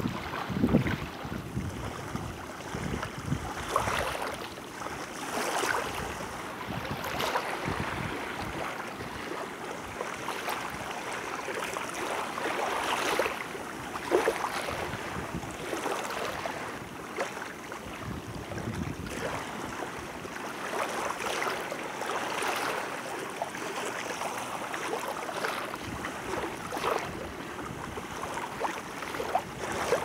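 Small waves lapping and washing onto a sandy shore, each wash swelling up and falling away irregularly every few seconds.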